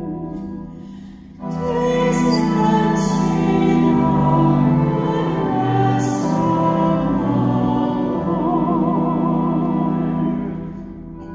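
A single voice with vibrato singing the responsorial psalm over sustained instrumental accompaniment, in long held notes; after a short pause, a new sung phrase comes in about a second and a half in and fades near the end.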